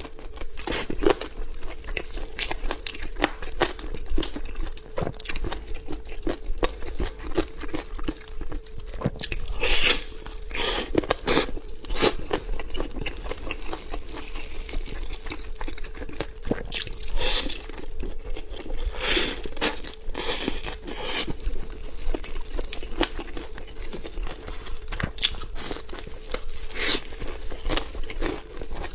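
Close-up eating sounds of someone biting into and chewing a pistol leg (a braised chicken leg with the thigh attached), with many irregular sharp crunches and wet chewing. The crunches come thickest around the middle and again a little past two-thirds of the way through, over a faint steady hum.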